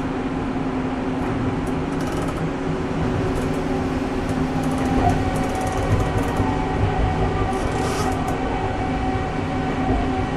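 Okinawa Urban Monorail (Yui Rail) 1000-series train heard from inside the car while running at speed: a steady running rumble with a constant low motor hum. A higher whine comes in about halfway through.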